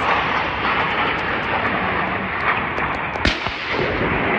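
Steady jet roar of a low-flying Su-25 attack jet's twin turbojets passing overhead, with a single sharp bang a little over three seconds in.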